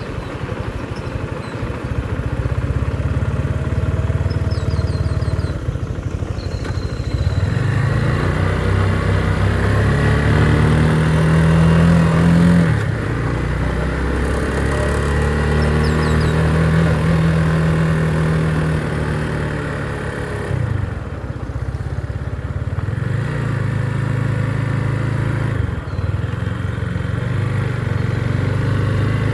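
Motorcycle engine heard while riding, pulling up through the revs and dropping in pitch at gear changes, one clear upshift about twelve seconds in, with steady wind and road noise.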